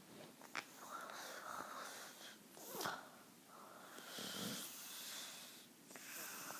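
Snoring: slow, faint breaths drawn in and let out in long swells, with a sharper, louder intake about three seconds in.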